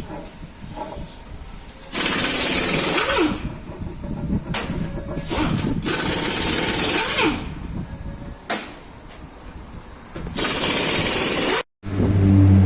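Impact wrench running in several short bursts of rapid hammering, undoing fasteners while the wheel end is taken apart.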